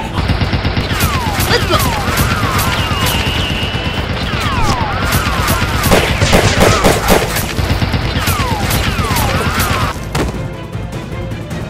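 Rapid gunfire sound effects, bursts of shots in quick succession like an action-film firefight, dubbed over toy-blaster shooting, with gliding whistle-like sweeps and background music. The firing is heaviest about halfway through and eases off near the end.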